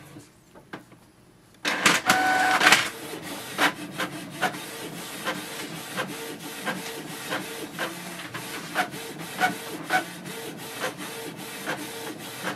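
Canon PIXMA MG2522 inkjet printer printing a page: its motors start with a loud burst of whirring about two seconds in. After that it runs with a steady mechanical hum and regular clicks about two to three times a second.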